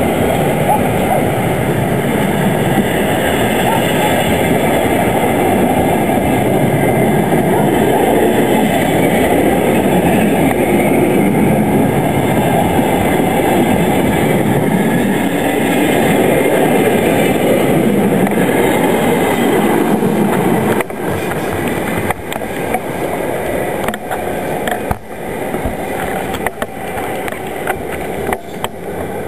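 Passenger train coaches rolling past close by at speed: a loud, steady rumble and hiss of wheels on rail. About two-thirds of the way through the sound drops to a quieter rolling, with sharp clicks of wheels passing over rail joints as the coaches move away.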